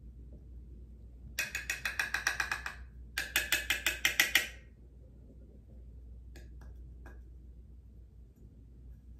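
A makeup brush worked quickly against a pan of setting powder: two bursts of fast, rhythmic strokes, about seven or eight a second, each lasting a little over a second. A few light clicks follow.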